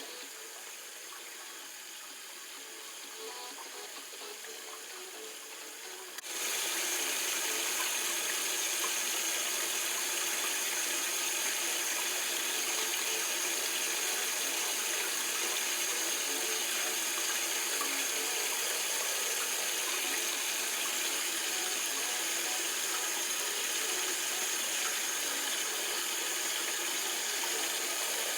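Steady rush of running water, becoming suddenly louder about six seconds in and holding steady after that.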